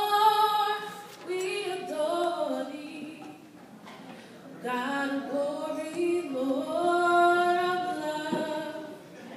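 A girl singing solo and unaccompanied into a handheld microphone: two slow phrases with long held notes, a short pause between them about three seconds in.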